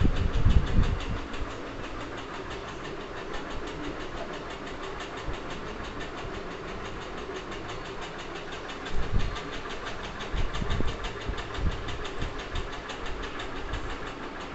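A steady mechanical running sound with a rapid, even ticking, several ticks a second. A few low thumps come near the start and about nine seconds in.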